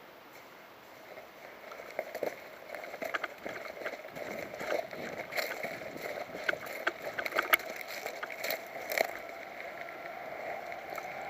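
Irregular rustling with many sharp crackles and clicks, thickest in the middle and thinning out near the end.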